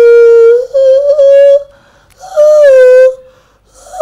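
Three long, high howling wails, each held just under a second, with short gaps between them.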